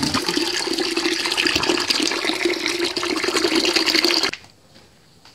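Water from a supply tap pouring in a steady stream into a plastic bucket as it fills, a continuous splashing gush. It cuts off abruptly about four seconds in, leaving only faint background.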